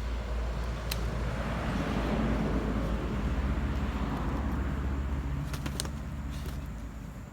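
A vehicle passing, its noise swelling over the first couple of seconds and fading away toward the end, over a steady low rumble, with a few faint clicks.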